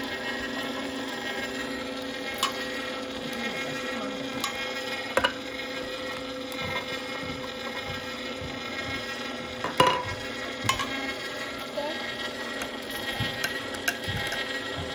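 Sharp Healsio slow juicer running steadily, its motor and auger pressing peeled mandarin segments, with a few short sharp clicks and cracks along the way, the loudest about ten seconds in.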